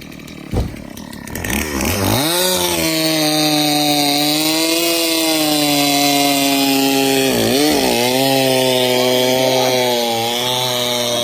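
Stihl two-stroke chainsaw revving up about a second and a half in and running at high revs through a cut in black locust logs, its pitch dipping once briefly in the middle. A single thump comes just before it starts.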